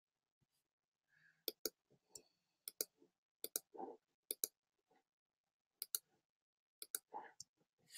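Faint clicks of a computer mouse as shapes are selected on screen, mostly in quick pairs, about six pairs spaced irregularly.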